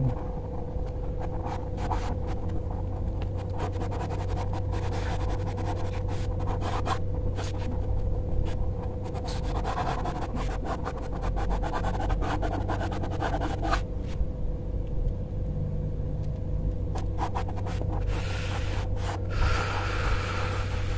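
Graphite pencil scratching and rubbing across sketchbook paper in irregular spells of strokes, with small taps between them, over a steady low hum.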